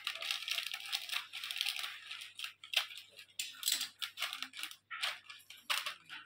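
A plastic snack packet crinkling and crackling as it is cut open with scissors and handled, in a run of short, irregular crackles.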